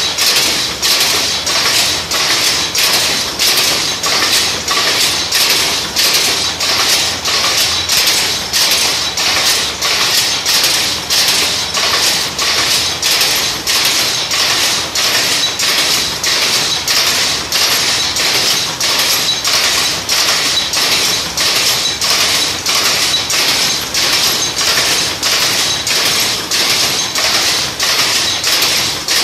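A 4×4 pick-and-pick shuttle power loom weaving at a steady speed. The shuttle picks and the sley beats up each weft pick, giving an even, regular clatter of about one and a half strokes a second over a continuous machine rattle.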